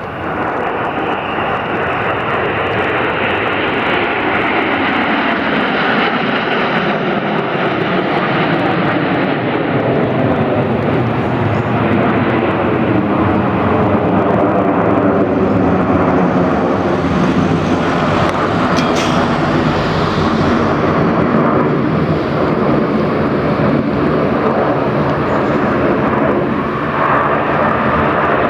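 Jet noise from a formation of Alpha Jets, each with twin Larzac turbofans, flying past. It swells in the first second, then stays loud and sustained, with a phasing whoosh sweeping up and down in pitch as the jets pass.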